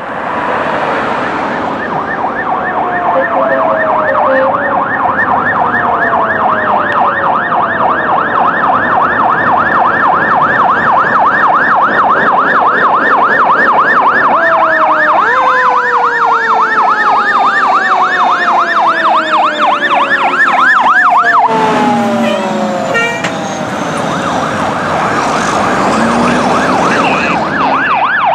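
Sirens of several fire engines on an emergency response. An electronic siren yelps, sweeping rapidly up and down several times a second, over slower siren tones that fall in pitch again and again as the engines pass.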